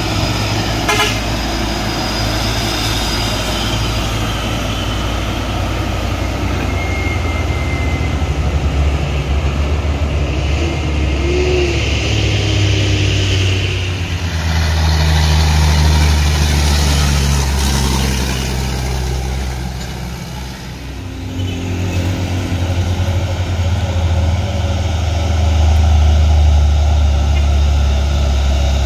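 Heavy trucks' diesel engines running hard as they climb a steep hill road, passing one after another; the engine sound dips about twenty seconds in, then a louder one comes up.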